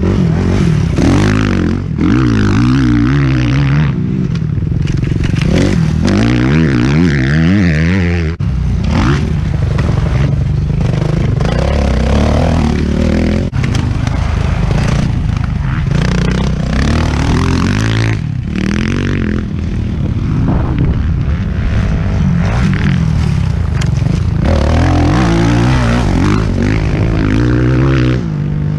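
Four-stroke motocross bike engine being ridden hard, revving up and falling back over and over, with short drops where the throttle is cut about a third and two thirds of the way through.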